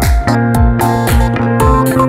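Electronic music: a deep kick drum that drops in pitch about twice a second, under held synth notes and bright cymbal hits.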